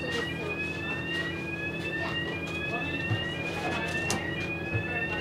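An electronic warning tone on board a stationary bus: a slightly rising sweep about a second long, sounding at two or three pitches together and repeating without a break, over the steady low hum of the bus.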